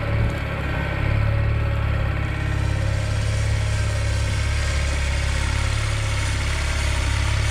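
John Deere 318 lawn tractor's twin-cylinder Onan engine running steadily while the tractor works a front blade through deep snow.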